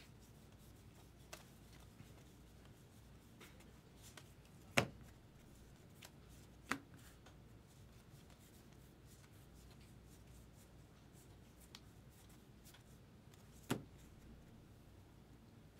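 2024 Topps Heritage baseball cards being handled and flipped through: faint rustling and small ticks, with three louder sharp taps about 5, 7 and 14 seconds in.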